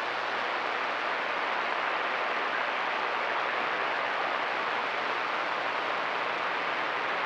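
CB radio receiver putting out steady static on an open channel between transmissions: an even hiss of band noise with no signal coming through.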